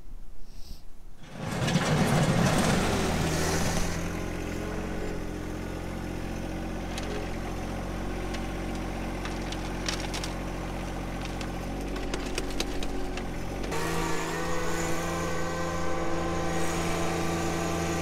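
John Deere 1025R compact tractor's three-cylinder diesel engine running. It comes up loud and rough about two seconds in, then settles to a steady run, and its note changes about fourteen seconds in.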